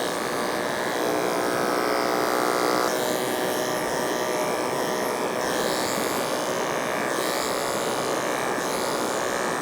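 Electric dog grooming clippers running steadily on a dog's coat, a constant motor hum that shifts slightly in pitch about one and three seconds in.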